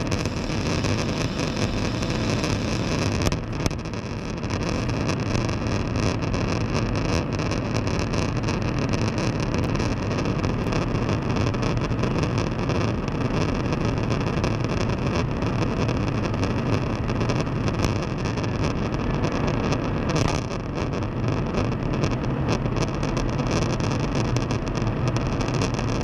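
Steady rush of airflow and jet engine drone in a tanker aircraft in flight during aerial refuelling, dipping briefly twice: a few seconds in and about two thirds of the way through.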